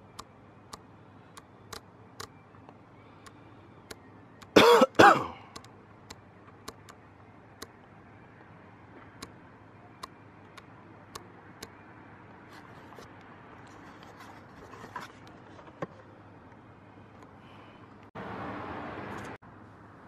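A man coughs twice in quick succession close to the microphone, about five seconds in. Faint scattered clicks sound throughout, and near the end a short burst of steady hiss starts and stops abruptly.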